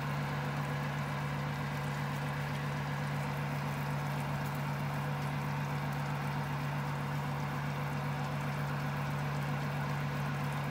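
Electric oven's fan running with a steady low hum and an even hiss over it.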